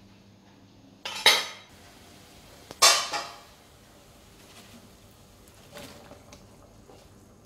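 Metal cookware clanking: two loud clatters about a second and a half apart, the second ringing briefly.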